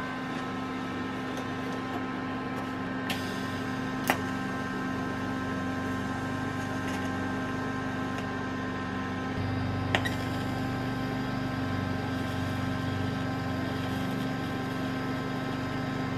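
TIG welding arc on an exhaust manifold flange: a steady electric hum and hiss from the welder as it fuses a fastener head onto the flange without filler rod. There are a few sharp ticks, one about three seconds in, one about four seconds in and one about ten seconds in.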